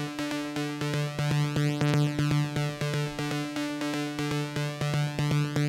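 Waves Codex wavetable synthesizer playing a held stacked-saw sound, chopped into a fast, even rhythmic pulse by its step sequencer acting as a gate on the note.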